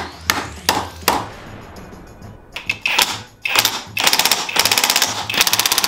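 A few knocks of parts being handled, then a cordless impact driver hammering in several short, rapid rattling bursts from about halfway through as it runs a bolt tight on a handguard mount, over background music.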